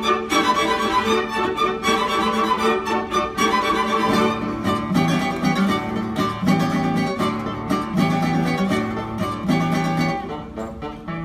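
Classical guitar playing with a string orchestra: the guitar's plucked notes over bowed violins. About four seconds in, a pulsing figure of low repeated notes comes in, and the music softens near the end.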